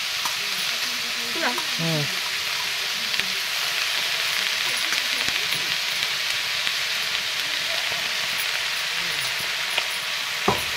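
Oil sizzling steadily in a steel kadai of frying pumpkin pieces as handfuls of chopped pumpkin leaves are dropped in on top. One sharp knock near the end.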